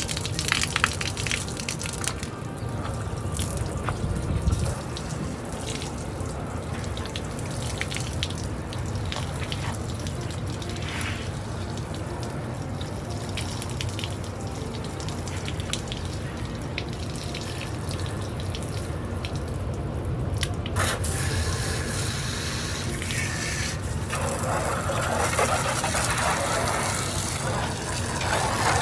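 Water from a garden hose spray nozzle spraying and splashing onto a pickup truck's body and dripping, under background music; the spray is louder for the last few seconds.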